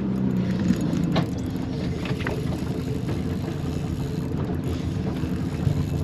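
Boat motor running steadily at low throttle while the boat follows a hooked fish.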